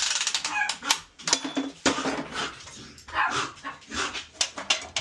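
A dog barking: a run of short, separate barks.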